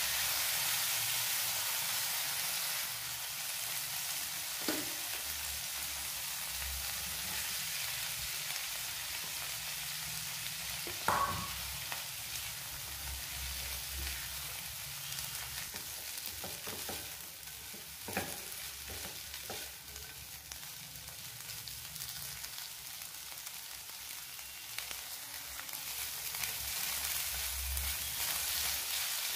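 Onions, peas and potato pieces sizzling in oil in a nonstick frying pan while being stirred with a spatula. A steady frying hiss runs throughout, with occasional knocks and scrapes of the spatula against the pan, the loudest about eleven seconds in.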